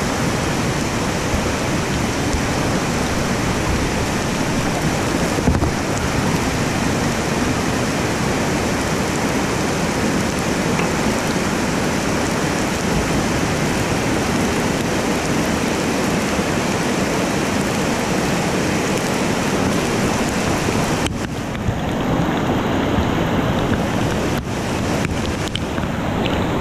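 Creek whitewater rushing steadily over rock drops and ledges. Near the end the sound briefly turns muffled a few times.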